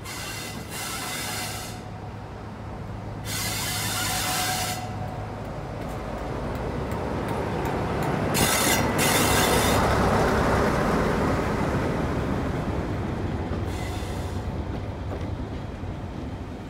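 Mainline diesel locomotive drawing a train of coaches slowly past. Its engine gives a steady low hum that grows loudest about halfway through as the locomotive goes by, then the coaches rumble past. Four short high-pitched hissing bursts break in along the way.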